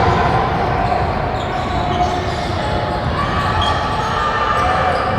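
Echoing game noise in a large gym: a ball bouncing on the court amid a steady hubbub of voices from players and spectators.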